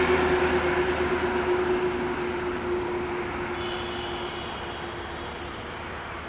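Diesel locomotive engine running steadily, fading away as the train draws off into the distance.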